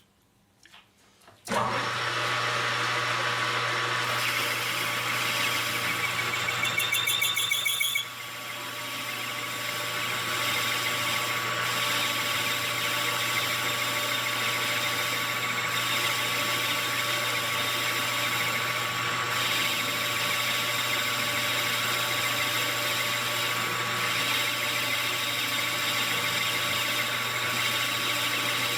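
A small high-speed power tool fitted with a cutting wheel starts about a second and a half in and runs with a steady whine. It is louder for a couple of seconds with a pulsing high ring, then drops a little and runs on steadily.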